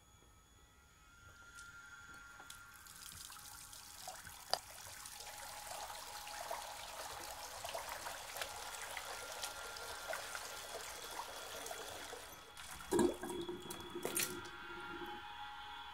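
Water running from a bathroom basin tap into the sink, a steady splashing hiss that builds up about a second in. Near the end come a couple of louder splashes as water is splashed onto a face at the basin.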